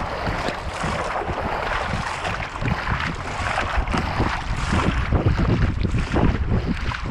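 Water rushing and splashing along a moving kayak's bow, recorded close to the water line, with wind buffeting the microphone in a steady low rumble.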